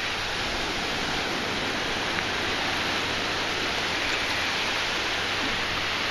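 Ocean surf breaking and washing up the beach, a steady hiss with no distinct individual waves.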